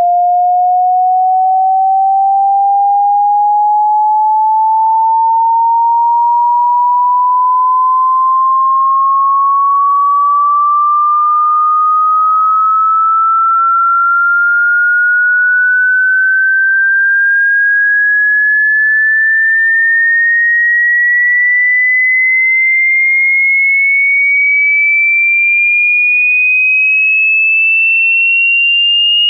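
A single pure electronic sine tone rising slowly and evenly in pitch, from a mid-range whistle to a higher, shriller one, at a constant loud level: a low-to-high hearing-test frequency sweep.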